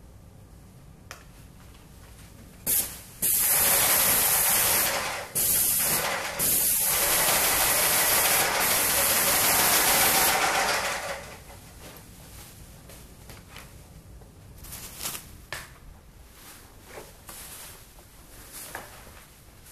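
Paint spray gun on an extension pole hissing as it sprays the ceiling: a short burst, then about eight seconds of steady spraying with two brief breaks, stopping about eleven seconds in. After that only a few faint clicks.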